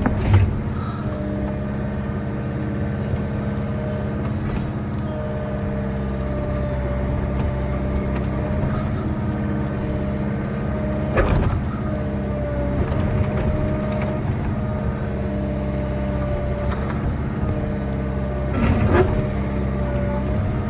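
Diesel engine of a tracked earthmoving machine running steadily under work, heard from the cab, with three short knocks: one right at the start, one about halfway through, and one near the end.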